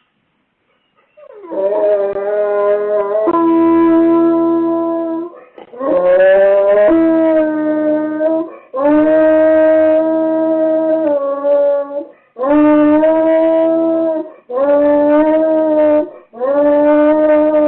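A dog howling in a string of about six long, pitched howls, each two to four seconds and rising at the start, beginning about a second in, heard through a Ring security camera's microphone. The howling is separation distress at being left home alone, which the owner says sounds like agony.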